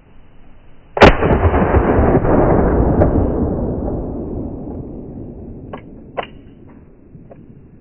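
A single handgun shot: a sharp crack about a second in, then a long low rumble fading away over about four seconds. A few light clicks come near the end.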